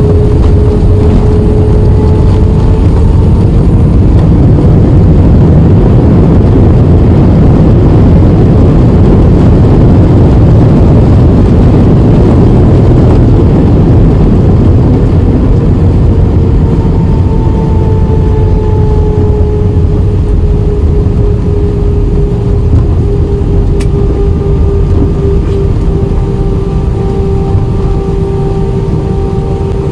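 Airbus A320 jet engines and rushing air heard inside the passenger cabin during landing: a loud, steady roar with a held hum, easing slightly over the last third.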